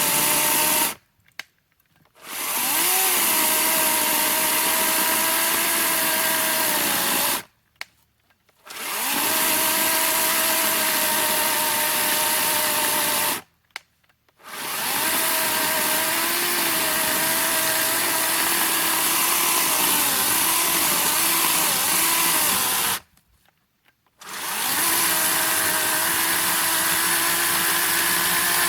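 Teccpo 40-volt cordless electric chainsaw cutting through a thick, dry log at the limit of what it can handle, its motor whine sagging in pitch under load and picking up again. It stops four times, leaving gaps of about a second of near silence between stretches of cutting.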